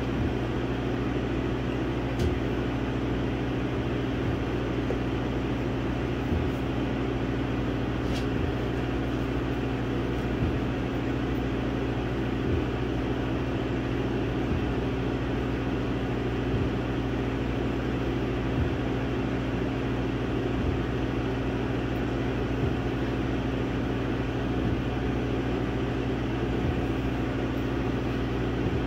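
Laser engraver running while it burns a design into wood: a steady machine hum from its motors and fan, with a faint click about every two seconds.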